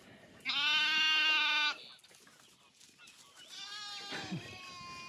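A Dorset lamb bleating: one loud, drawn-out bleat about half a second in, then a fainter, wavering bleat in the second half.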